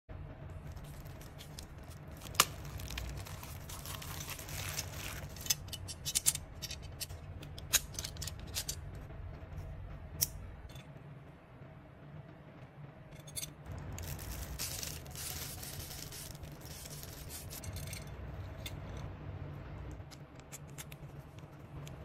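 Clear plastic wrapping crinkling and tearing as a metal belt buckle is unwrapped and handled, with scattered sharp clicks and taps of the metal.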